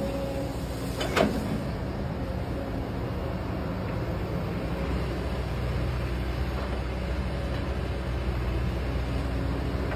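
Kobelco SK200-8 excavator running steadily under load, with a single sharp metallic clank about a second in.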